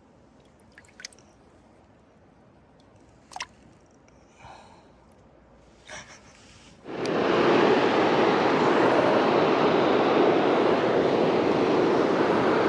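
A few faint clicks and knocks. Then, about seven seconds in, a steady rush of river water starts suddenly and keeps on.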